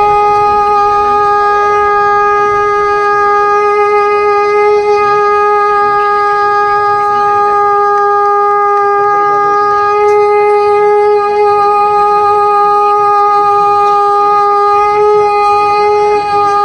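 Conch shell (shankh) blown in one long, loud, steady note that holds the same pitch throughout.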